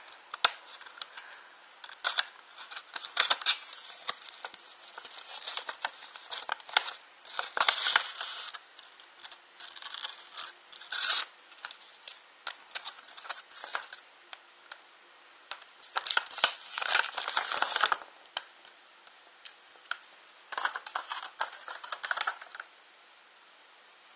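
A small surprise box being opened and its contents unwrapped by hand: irregular bursts of scratching, tearing and rustling with short clicks, and a longer rustle about two thirds of the way through.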